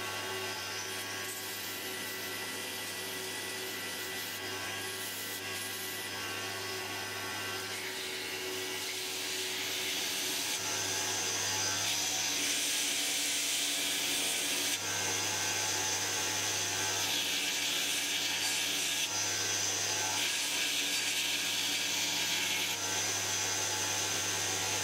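Belt grinder running with a steady motor hum while a wrought-iron axe head is ground on the abrasive belt over its small contact wheel. The grinding hiss comes and goes in stretches and grows stronger in the second half as the steel is pressed against the belt.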